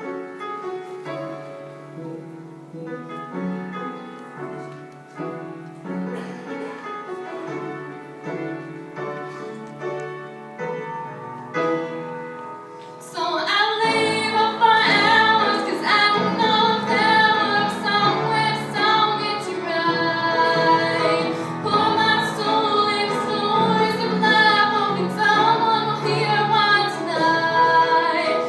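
A girl singing a slow ballad solo with live instrumental accompaniment. About halfway through the music swells and gets much louder and fuller, the voice held with vibrato.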